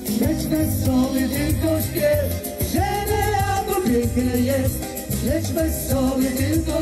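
Live band playing an upbeat song with vocals, sung melody over bass and drums keeping a steady beat.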